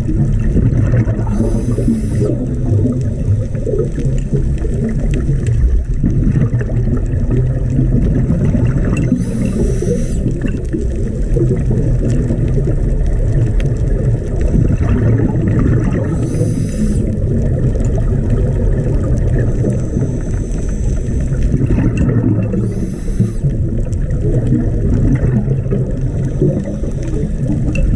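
Scuba diver's underwater breathing: four short bubbling hisses of exhaled air, about seven seconds apart, over a steady low rumble of water around the camera.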